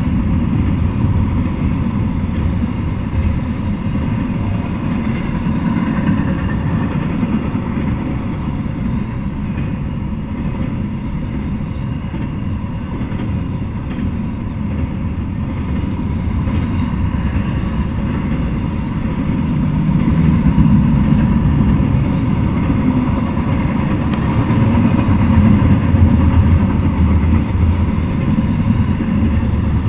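Double-stack intermodal freight train rolling past: a steady rumble of steel wheels on rail and well cars, swelling louder twice in the second half.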